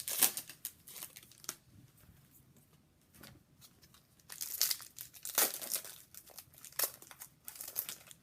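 Crinkling and tearing of a foil trading-card pack wrapper being handled and opened, in irregular rustles that come in clusters, the loudest near the start and in the second half.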